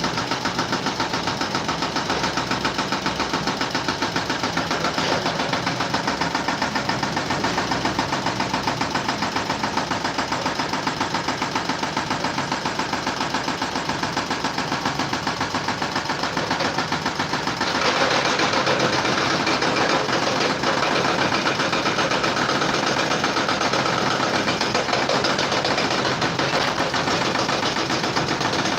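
A rapid, steady mechanical rattle like a running motor, with fast even pulses throughout. About 18 seconds in it turns louder and brighter.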